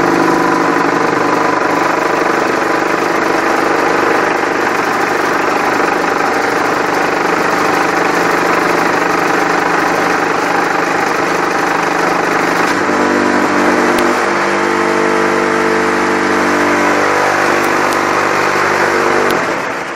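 Semi-automatic concrete block making machine running: a loud, steady mechanical drone from its motors. About two-thirds of the way through, a second, deeper drone joins in, and both cut off just before the end.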